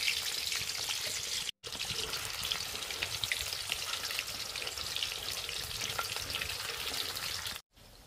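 Potato sticks deep-frying in hot oil in a steel wok: a steady sizzle full of small crackling pops. It cuts out for a moment about a second and a half in, and drops much quieter near the end.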